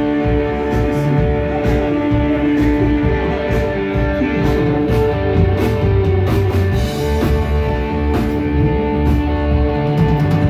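Live rock band playing: electric guitar and drum kit, with long held notes running through and drum hits at a steady pace, heard from within the crowd.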